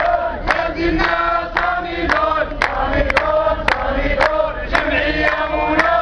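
A protest crowd chanting slogans together in many voices, over a sharp beat that repeats about twice a second.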